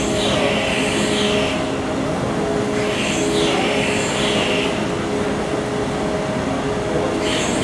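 Large car ferry's diesel machinery running as the ship berths: a steady low hum with several held tones under a constant rushing noise, with hissing surges that come and go roughly every three seconds.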